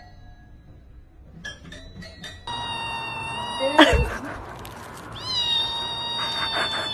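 A kitten meowing in long, drawn-out cries, with a sharper, louder cry about four seconds in. It follows a couple of soft notes from a toy piano pawed by a cat near the start.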